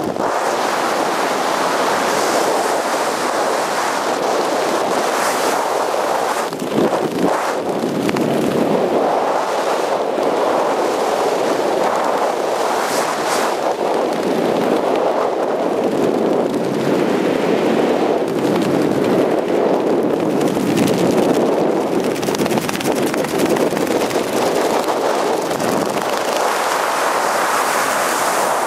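Airflow buffeting the camera's microphone during a parachute descent under an open canopy: a steady rush of wind noise that swells and eases every few seconds.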